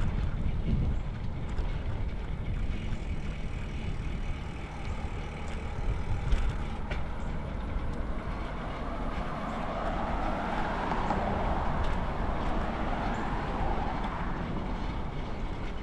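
Road traffic passing, with a steady low rumble of wind on the microphone throughout. One vehicle swells up and fades away about two-thirds of the way in.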